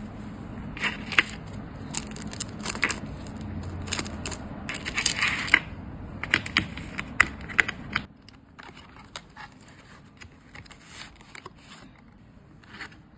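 Hands handling packaging: irregular sharp clicks and crinkly rustling, busy at first and growing fainter and sparser after about eight seconds.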